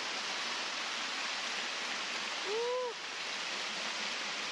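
Mountain stream water rushing, a steady hiss. About two and a half seconds in, a short call rises and falls in pitch over it.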